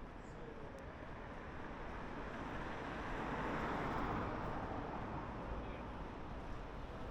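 A road vehicle passing by on a city street, its tyre and engine noise swelling to a peak about halfway through and then fading away.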